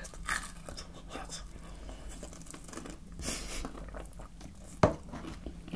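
Close-miked eating sounds: chewing with small wet mouth clicks, a brief rustle about three seconds in, and one sharp click near the end.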